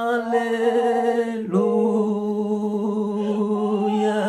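A single voice singing a slow worship chant of "hallelujah", unaccompanied, holding long drawn-out notes. The voice drops to a slightly lower note about a second and a half in.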